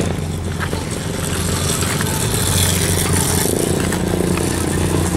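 An engine running steadily at an even, low pitch.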